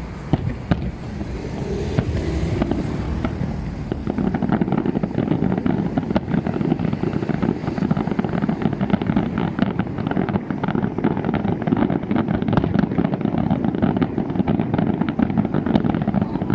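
Fireworks: a few sharp bangs, then from about four seconds in a dense, continuous rapid crackle.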